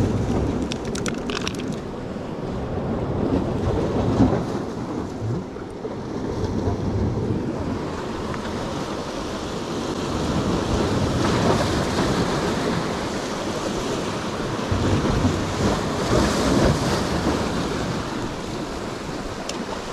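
Wind buffeting the microphone over the wash of surf among breakwater rocks, a steady rumbling noise that swells and eases.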